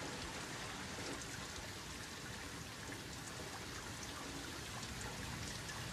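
Rain and runoff water trickling along a street gutter into a storm drain, a low, steady wash with faint scattered drips.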